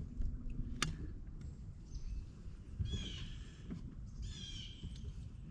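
A bird calling twice, short falling high calls about three and four and a half seconds in, over a low rumble of wind on the microphone; a single sharp click a little under a second in.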